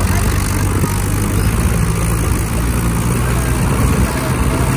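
Diesel engines of a Farmtrac 50 and a Swaraj 841 XM tractor running steadily while the tractors pull against each other on a chain.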